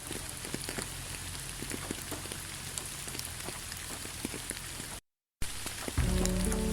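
Steady rain falling, with many separate drops ticking. It cuts out to silence for a moment about five seconds in, and soft music with low held tones comes in over the rain near the end.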